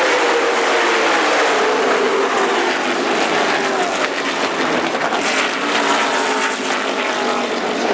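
A pack of NASCAR Cup Series stock cars at full speed, many V8 engines blending into one loud steady sound, with pitches sliding down as cars pass by.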